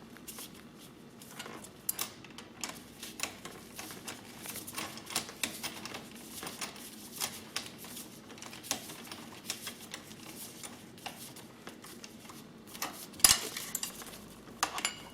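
Light, irregular metallic clicks and taps of an Allen key and spanner working the handlebar clamp bolts on a pit bike, with one louder knock near the end.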